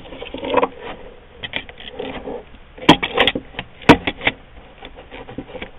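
Airsoft AK-47 front and rear receivers being handled and test-fitted together: scattered light clicks and knocks, with a few sharper knocks about three to four seconds in.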